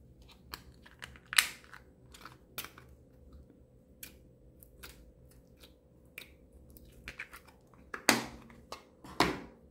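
Hands handling a small plastic slime container, its snap lids clicking and knocking in an irregular string of sharp clicks, with two louder knocks near the end.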